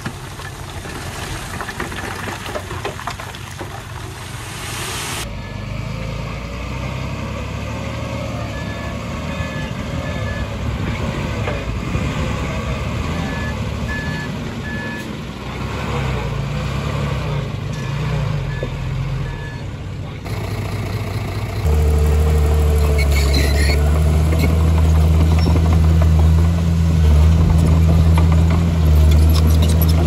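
Heavy diesel construction machinery running at a worksite. Three short runs of a reversing alarm beep during the middle of the clip, and from about two-thirds of the way through a nearby diesel engine runs much louder and steady.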